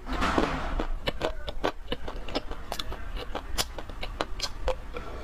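Dry clay crunching and crumbling: a run of crisp, irregular crackles and snaps, several a second, with a brief rustling crumble at the start.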